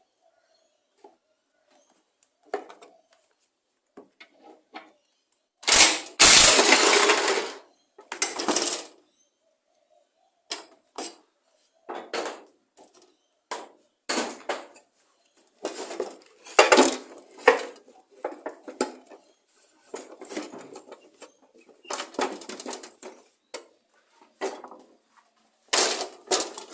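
Metal tools and mower engine parts clinking and clattering as a lawn mower is taken apart, with irregular clanks and scrapes and one louder, longer clatter about six seconds in.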